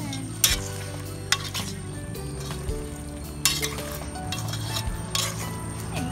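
A metal ladle stirring sour frog soup with water spinach in an aluminium pot: wet sloshing of broth and greens, broken by several sharp clinks of the ladle against the side of the pot, some coming in quick pairs.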